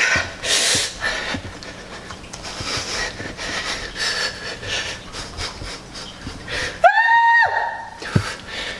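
A woman panting hard, quick breaths in and out in steady strokes, during a fast dumbbell arm workout. About seven seconds in she lets out one short, high, strained "ah" that rises and then holds before breaking off.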